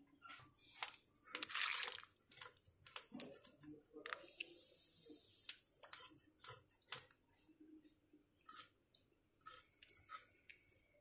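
Irregular clicks and light clatter of freshwater pond snail shells being handled, knocking against each other and a steel bowl, with a short louder rustle near the start.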